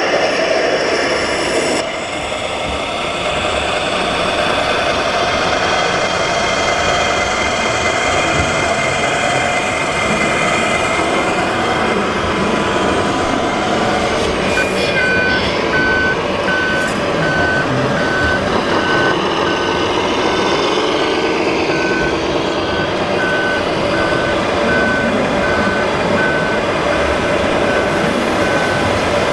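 Reversing warning beeper of an RC model truck's sound module: an even series of short high beeps that starts about halfway through. It sounds over a steady noisy background.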